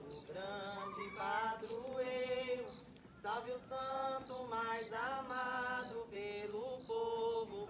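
Voices singing a slow Portuguese hymn to Saint Anthony, long held notes sliding between pitches in phrases with short breathing pauses.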